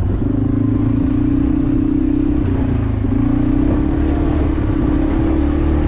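Automatic ATV engine running under throttle off-road. Its pitch dips briefly near the middle and then climbs again.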